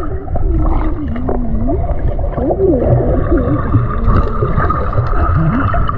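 Swimming-pool water heard underwater: a low gurgling rumble with muffled voice sounds that glide up and down in pitch.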